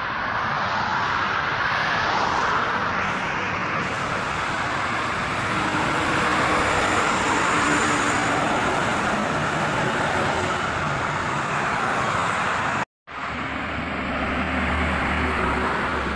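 Highway traffic passing: steady tyre and engine noise of cars and a coach going by, swelling and easing as vehicles pass. It cuts out briefly about thirteen seconds in, then the traffic noise continues with a low steady hum beneath it.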